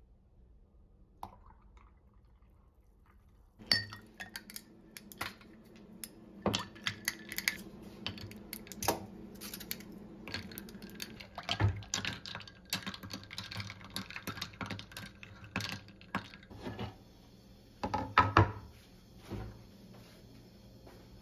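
Ice cubes dropped one after another into a ceramic mug of coffee, making a string of clinks and knocks, with a louder clatter of kitchenware near the end.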